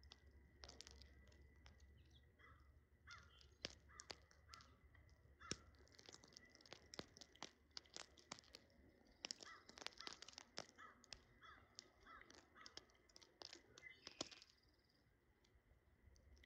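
Birds feeding: many sharp pecking taps and clicks, mixed with short calls repeated every second or so. The taps come thickest in the middle and fall away near the end.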